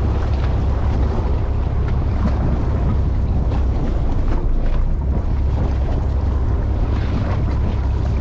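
Wind buffeting the microphone over the steady low rumble of a fishing boat on the water.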